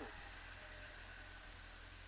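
Faint, steady background noise: an even hiss over a low rumble, with no distinct event.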